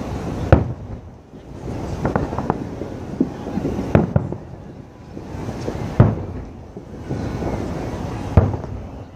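Aerial fireworks bursting: a sharp bang every second or two, about six in all, over continuous crackling. The loudest bangs come about half a second in and about six seconds in.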